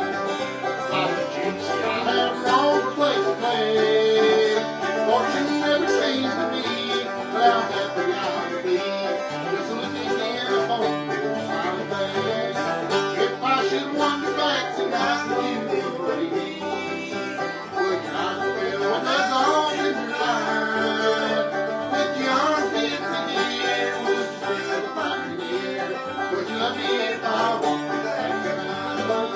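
Bluegrass band playing an instrumental break: fast-picked banjo over acoustic guitar.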